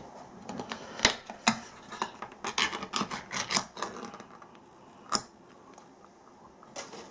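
Ring-pull lid of a can of mackerel being opened by hand: a sharp crack as the seal breaks about a second in, a second click, then a run of small metallic clicks as the lid is peeled back around the rim. A single sharper click comes about five seconds in.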